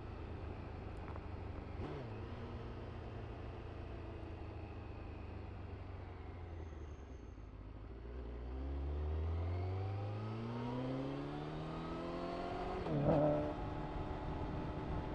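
Honda CBR1000RR-R SP Fireblade's inline-four through an Akrapovic exhaust, running at a low steady note and then rising steadily in pitch for about four seconds as it accelerates. A short sharp burst comes near the end, and the engine then settles at a steadier, higher note.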